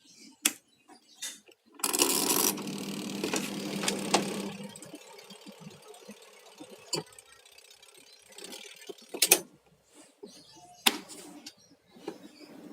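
Washing machine with a manual timer and relay control being worked: a few sharp clicks, then a steady motor hum with rattling noise for about two and a half seconds starting about two seconds in, followed by further scattered clicks.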